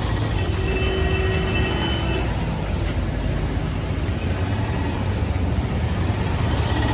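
Steady low rumble of vehicle engines and road traffic, with a faint high tone held for about two seconds near the start.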